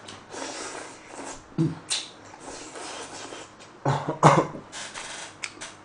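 Noodles being slurped and chewed by a man eating, in several hissing slurps with a louder burst of mouth noise about four seconds in.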